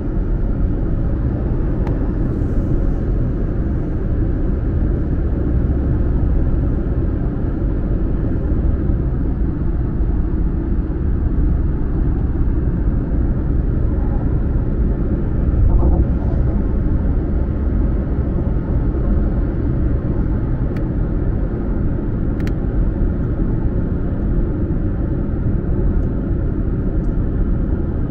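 Steady road rumble inside a car's cabin as it cruises along a motorway, with tyre and engine noise heavy in the low end. The rumble swells briefly a little past halfway.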